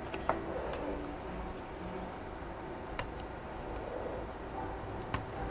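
A few sharp, light clicks of a plastic spudger against the opened laptop's internal parts, three in all, spaced a couple of seconds apart, over a steady low background hum.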